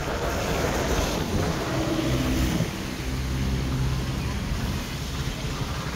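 Wind rumbling on the microphone, with a low steady hum that comes up about two seconds in and fades again past the middle.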